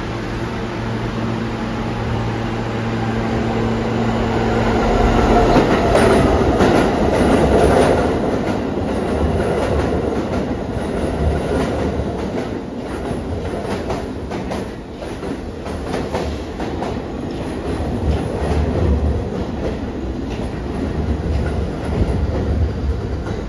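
R160 subway train with Alstom propulsion pulling out and running past along the track. A steady motor hum comes first, then from about a third of the way in the wheels clatter over rail joints in many sharp clicks.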